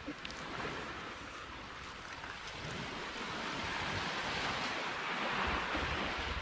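Surf washing on the shore with wind, a steady rushing noise that slowly builds and is loudest about two-thirds of the way in.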